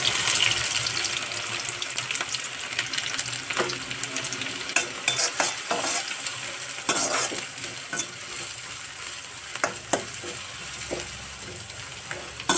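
Chopped onion sizzling in hot oil in an iron kadhai, loudest at first and easing gradually, while a spatula stirs it, scraping and clicking against the pan now and then.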